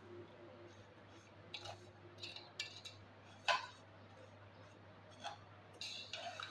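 Metal slotted spoon scraping and clinking against a metal pot as dry vermicelli strands are stirred while roasting until brown. The scrapes come scattered and irregular, the loudest about three and a half seconds in, over a faint steady hum.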